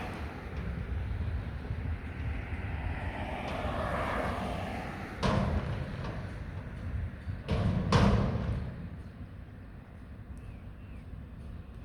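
Mack McNeilus front-loader garbage truck running with a steady low rumble, with two sudden loud metal bangs about five and eight seconds in, the second the loudest, before it quietens down.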